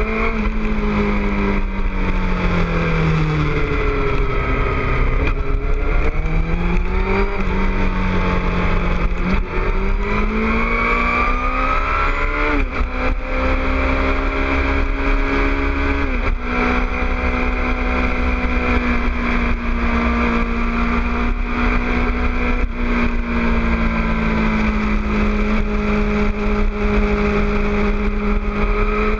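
2006 Suzuki GSX-R600's inline-four engine through a Two Brothers aftermarket exhaust, under way on a motorcycle. Its revs rise and fall repeatedly over the first half and drop sharply twice around the middle, then hold nearly steady at cruising speed, with wind noise underneath.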